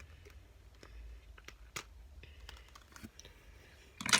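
Scattered light clicks and taps of small plastic desk items being handled, with a louder clatter near the end.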